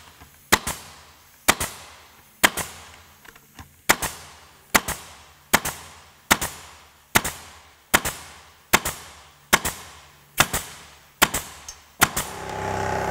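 Makita 18-gauge pneumatic brad nailer firing nails into a pine board in quick succession, about fourteen sharp shots roughly one a second. Near the end the Makita 40V XGT 2-gallon Quiet Series compressor kicks on with a steady low hum as the tank pressure has dropped and it starts to recover.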